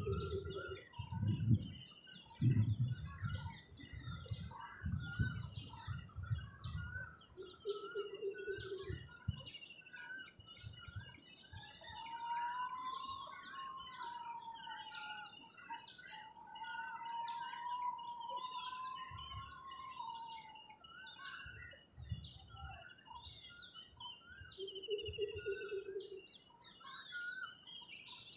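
Many birds chirping and calling together in a morning chorus, short calls overlapping throughout. A long, slowly wavering tone runs through the middle, and a few low thuds come in the first several seconds.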